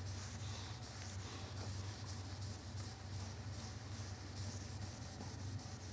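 Microfiber towel lightly buffing dried metal polish off a table saw's metal tabletop by hand, a faint, uneven rubbing, over a steady low hum.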